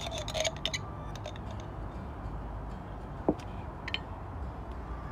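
Light clicks and taps of containers and dishes being handled while seasoning is added, with one sharper clink about three seconds in.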